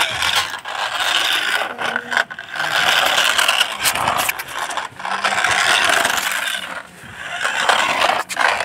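Battery-powered remote-control toy car driving over rough concrete: its small electric motor and plastic gears whir and its tyres scrape. The sound comes in long surges that drop away briefly about two, four and seven seconds in.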